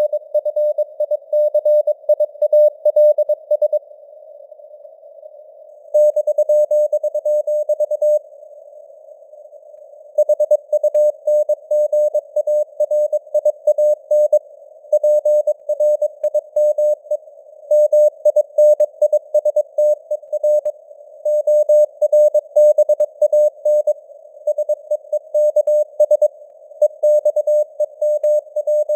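Morse code: a steady tone of about 600 Hz keyed on and off at 22 words per minute, sending text over a narrow band of simulated radio-receiver hiss. The keying stops for a couple of seconds twice, about four and eight seconds in, leaving only the hiss.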